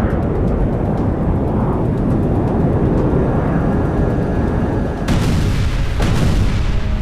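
Film sound effects: a fighter jet's low, steady engine rumble as a bomb is released, then two sudden explosion blasts, about five and six seconds in.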